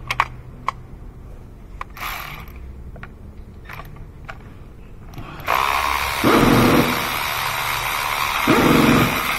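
A few light metal clicks as the spark plug socket is set in place, then a Milwaukee Fuel cordless ratchet running from about five and a half seconds in, with two louder surges, as it backs a spark plug out of the Honda 2.4 i-VTEC cylinder head.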